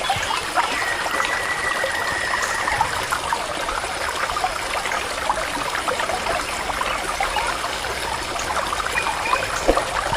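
Water trickling and splashing in a steady thin stream. It starts abruptly and keeps an even level.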